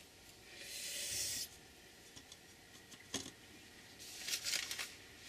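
Pencil scratching on paper in two short stretches, with a sharp click just after three seconds.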